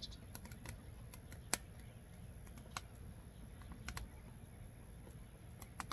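Oak logs burning in the open firebox of an offset barbecue smoker, crackling with irregular sharp pops, the sharpest about a second and a half in.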